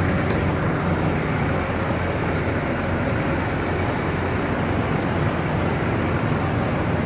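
Steady low rumble of an idling diesel semi truck, with a few faint clicks early on.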